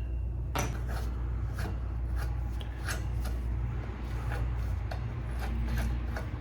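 Metal bike parts being worked by hand: repeated short scrapes and clicks, about two or three a second, over a steady low hum.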